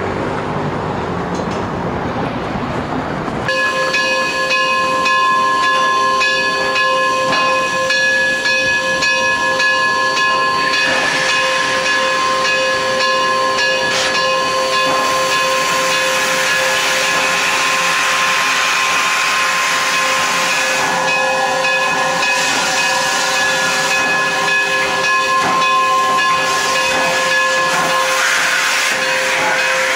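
Standing K-36 narrow-gauge steam locomotive No. 482 hissing steam, with a steady high whistling whine over the hiss, starting about three and a half seconds in after a lower rumble.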